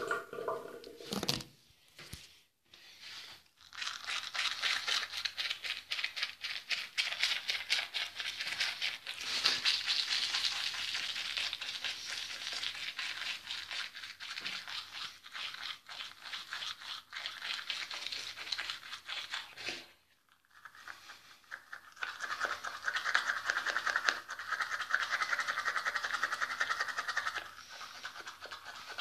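Manual toothbrush scrubbing teeth in rapid back-and-forth strokes, starting a few seconds in. The scrubbing stops briefly about twenty seconds in, then resumes lower in pitch.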